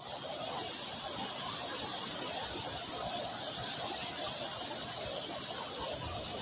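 Fast, muddy stream rushing steadily past, a continuous hiss of flowing water.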